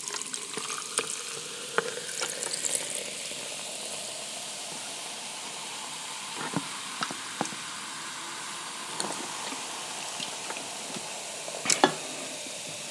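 Carbonated soda poured from a can over a jar full of ice, fizzing with a steady crackling hiss as the bubbles burst. A few sharp clicks from the ice stand out, the loudest near the end.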